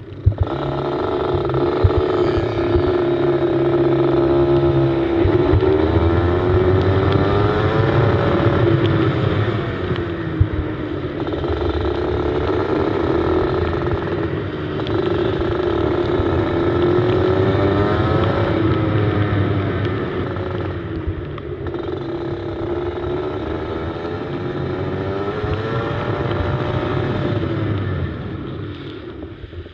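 Go-kart engine heard from on board, revving up along the straights and dropping back for the corners, over and over, on a wet track.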